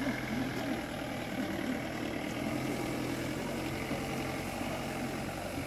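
Off-road jeep's engine running steadily at low revs as the jeep drives slowly away across bare rock.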